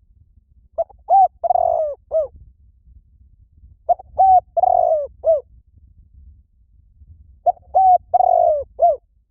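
Spotted dove cooing: three repeated phrases, each of two short coos, a longer rolling coo and a final short coo, about three and a half seconds apart.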